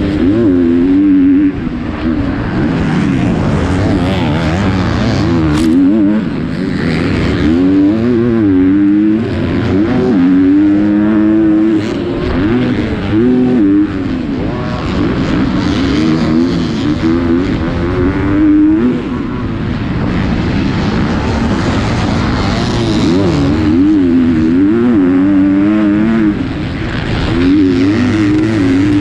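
250cc four-stroke motocross bike engine racing on track, its pitch climbing and dropping over and over as the rider opens and shuts the throttle and shifts through the gears. A single sharp click sounds about six seconds in.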